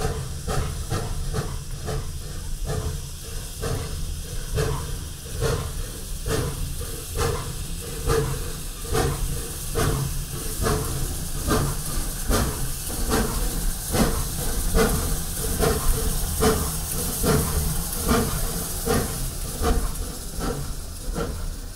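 Replica 4-4-0 steam locomotive chuffing past at slow speed, its exhaust beats coming evenly about two a second over a steady hiss of steam. It is loudest a little past the middle.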